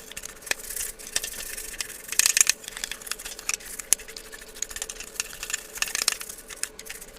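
Toothbrush head bristles rubbed and scraped against paper to knock off debris that clings to them. A run of scratchy strokes and small clicks, busiest about two seconds in.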